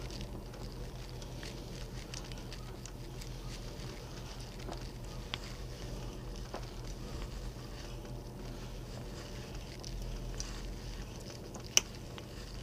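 Antique Irwin auger bit turned by a hand brace, boring into hard hickory: faint crackling and crunching as the cutters sever the wood and lift curled shavings, with scattered small ticks and one sharp click near the end.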